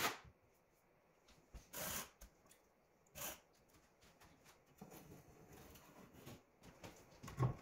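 Short, faint scrapes of a tile trowel against wet thinset on the wall, three in the first few seconds, followed by soft scratchy rustling of the paper covering the countertop and a low knock near the end.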